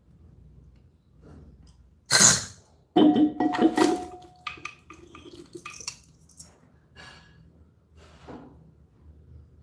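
A short sharp hiss about two seconds in, then a glass and other objects clinking and knocking as they are handled, with a brief ring, followed by scattered small clicks.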